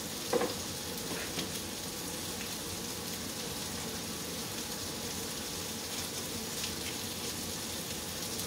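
Heat-and-serve sausage links sizzling steadily in a frying pan. There is a brief knock about half a second in.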